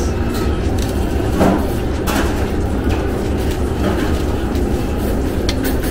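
Busy restaurant noise: a steady low rumble with a few short clinks of plates and serving utensils at the buffet counter, two of them close together near the end.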